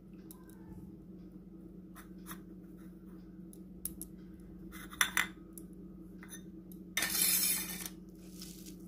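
Crisp fried onions (beresta) being mixed by hand into a mashed fish mixture on a stainless steel plate: scattered clicks and clinks of fingers and food against the metal, with a louder crunching rustle about seven seconds in. A steady low hum lies underneath.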